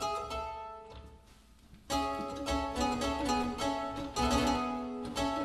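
Harpsichord music: a few sparse plucked notes, then from about two seconds in a louder, busier passage of plucked notes and chords.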